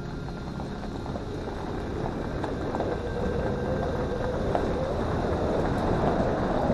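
Toyota 4Runner driving on a back road: a steady engine drone and road noise with scattered knocks, growing louder through the second half.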